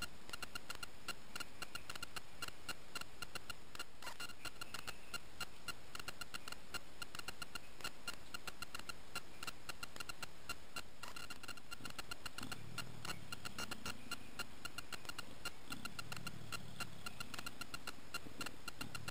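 Fast, steady ticking trill of night insects. In the second half, low growls from Javan leopards come and go.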